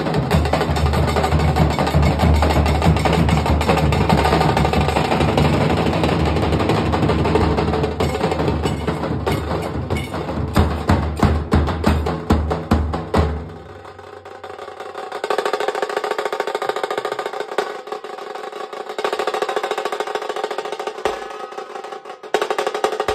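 Nashik dhol-tasha drumming: large barrel-shaped dhol drums and tasha drums beaten together in a fast, loud rhythm. About 13 seconds in the deep dhol beats stop, and lighter, higher drumming carries on without them.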